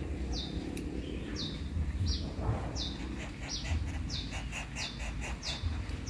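A small bird repeating a short, high chirp that slides downward, about once every two-thirds of a second. A quick run of faint clicks comes in the middle, over a low rumble.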